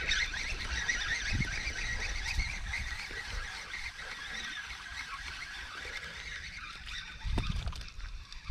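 A flock of birds calling, many short high calls overlapping in a dense chorus that eases a little after the middle, with a few low thumps near the end.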